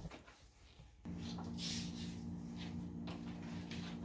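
A steady low electrical or motor hum starts abruptly about a second in and holds at an even pitch, over faint handling clicks.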